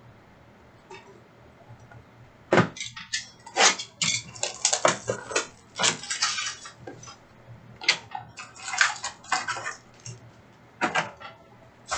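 Trading cards and card packs being handled: irregular crinkling and sharp plastic clicks in dense clusters, starting about two and a half seconds in and dying away shortly before the end.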